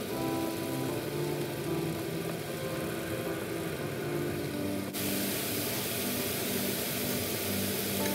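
Ground spice paste and lime leaves sizzling as they fry in hot oil in a pan, a steady hiss that turns brighter about five seconds in, with background music.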